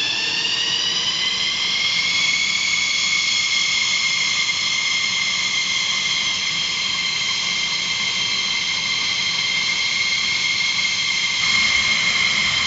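F-16's jet engine spooling up during its start: a high whine rising in pitch over the first two seconds, then holding steady.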